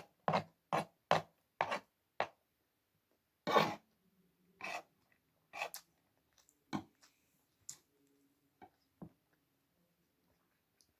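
Close-up chewing of crunchy food: a quick run of about seven crunches in the first couple of seconds, a longer crunch near the middle, then fainter, sparser bites.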